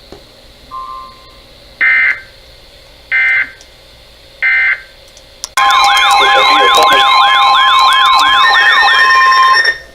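NOAA Weather Radio emergency alert signal: three short buzzy data bursts of the digital alert header, about a second apart. Then comes a loud steady high alarm tone announcing a warning, with a siren-like warble sweeping up and down about three times a second on top of it, and it cuts off just before the end.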